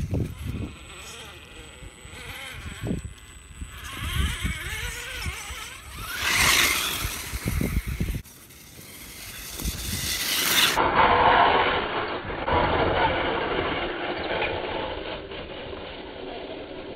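Axial Wraith radio-controlled rock racer driving over a dirt trail, its electric motor and geartrain whining as it accelerates and slows, with low rumbles early on. The sound changes abruptly twice, about eight and eleven seconds in.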